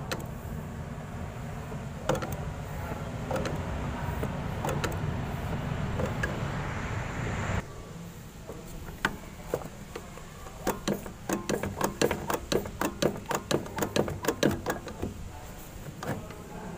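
Diesel injector nozzle tester being hand-pumped, making a run of sharp clicking strokes about three a second in the second half, while testing a Komatsu PC200-6 injector nozzle that atomises poorly. A steady whirring noise before it cuts off suddenly about halfway through.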